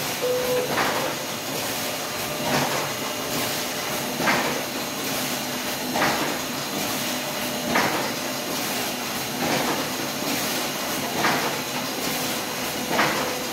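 Horizon SPF-20A stitcher-folder running through its automatic setup, with a steady mechanical whir and a louder stroke of its mechanism about every second and three-quarters.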